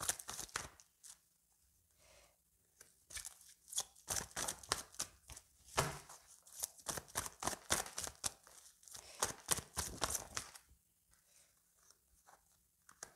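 A deck of oracle cards shuffled by hand: a quick run of soft card slaps and flicks that stops about ten and a half seconds in, leaving only faint card handling.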